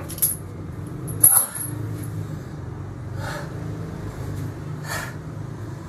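Heavy steel exercise chain clanking and rattling against the floor, with the loudest clank about a second in. It is followed by three sharp, heavy exhalations about a second and a half apart from a man straining through chained burpees.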